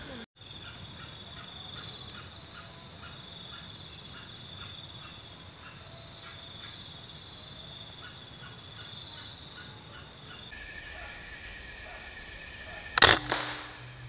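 A single sharp crack from a scoped PCP air rifle, about 13 seconds in, with a short ringing tail. Before it, a steady high insect drone runs on, with faint chirps repeating about twice a second.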